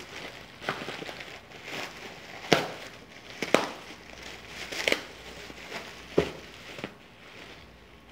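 Clear plastic bag crinkling and rustling as it is pulled open by hand, with several sharp, irregular crackles of the plastic.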